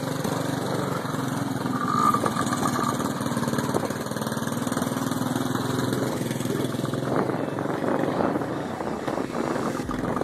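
Small petrol engines running steadily at low speed, with a slight rise in pace about two seconds in.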